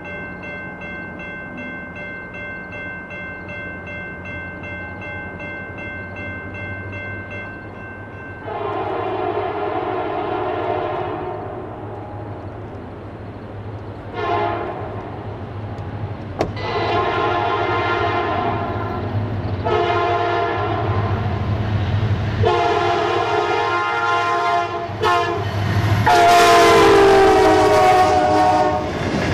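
Grade-crossing warning bell ringing steadily, then an approaching Amtrak train's locomotive horn sounding a series of long and short blasts for the crossing. The blasts grow louder, and the last long one drops in pitch as the locomotive passes, over the rising rumble of the train.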